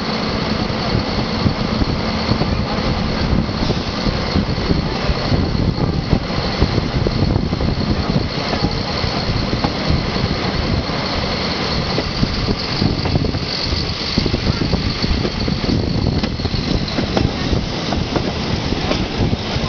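Diesel railcar running along the line, heard from on board: steady, loud engine and running noise, with a faint high whine throughout.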